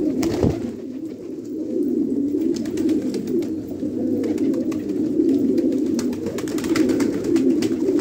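A flock of fighter pigeons cooing together in a continuous, overlapping chorus, with scattered sharp clicks among it.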